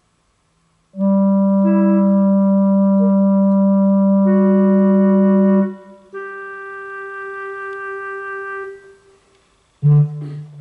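Electric guitar played through a synthesizer, sounding sustained organ-like synthesized notes: a long held low note with higher notes changing above it, then a quieter single held note. Near the end comes a sudden loud plucked low note.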